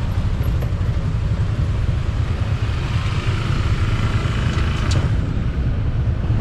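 Street traffic with motorbike engines running, under a constant heavy low rumble.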